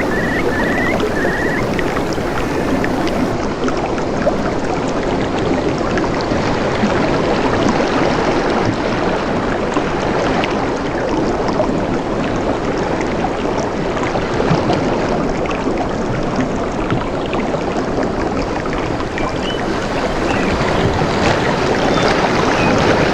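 Steady rush of flowing water, with a bird's short chirps in the first second and a few faint chirps near the end.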